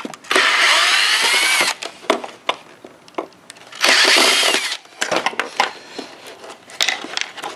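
Cordless drill backing wood screws out of a table's corner block in two short runs, the first about a second and a half long with a whine that climbs in pitch, the second under a second. Light clicks and knocks follow as the loosened parts are handled.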